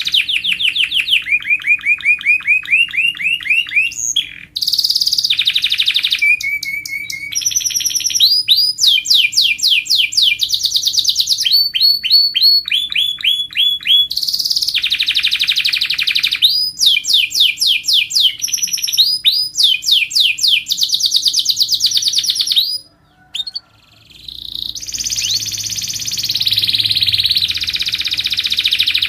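Canary singing: fast trills of rapidly repeated notes, switching to a new rolling phrase every second or two, with a brief pause about 23 seconds in.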